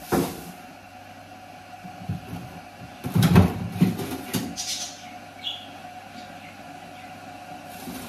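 Kitchen handling noises: a sharp knock right at the start, then a cluster of clattering knocks about three seconds in, over a faint steady hum.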